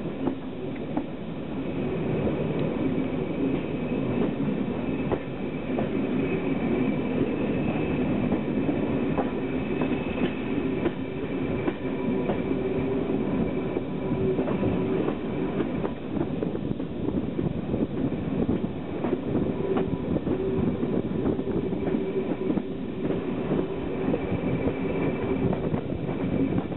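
Diesel-hauled heritage train running and picking up speed, heard from a carriage window: a steady diesel engine note under power with wheels clicking over the rail joints.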